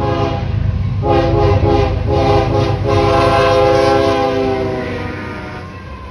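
Diesel freight locomotive's air horn sounding a chord in a few blasts, the last one long and fading out about five seconds in, over the low rumble of the passing locomotives.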